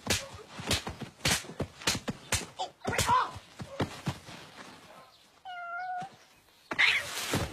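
A quick run of thuds and slaps from a physical scuffle, about three or four a second, with a brief shout in among them. About five and a half seconds in comes a single short high cry, held for about half a second, and then a couple more thuds near the end.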